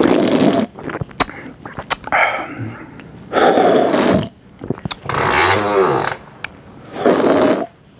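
Loud, exaggerated slurping from a drink can, in four long noisy slurps spread a second or two apart.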